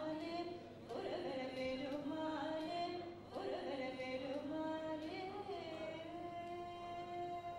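Hindu devotional singing: a voice holding long notes with slow slides in pitch, in several phrases, the last one a single note held steady for about two seconds.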